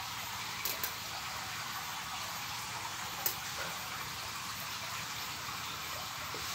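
Steady background hiss with a few light metallic clicks, two close together about a second in and one more about three seconds in: a hand screwdriver and small screws tapping on the metal top cover of an Ashley DLMS loudspeaker processor as the cover is screwed back on.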